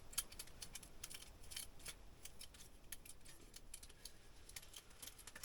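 Faint, irregular clicking, several clicks a second, from a small ice-fishing reel as line pays out under the weight of a heavy burbot lure sinking toward a deep bottom.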